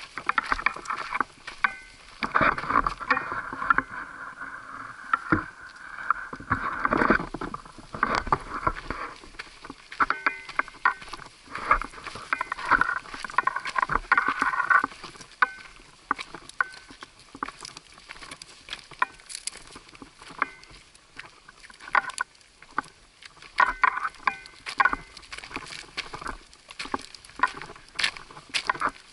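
Footsteps of a hiker and a dog on a rocky, gravelly trail, with irregular clicks, scrapes and rattles of the dog's harness and pack and the hiker's gear. There are denser stretches of rustling and scuffing a couple of seconds in and again around the middle.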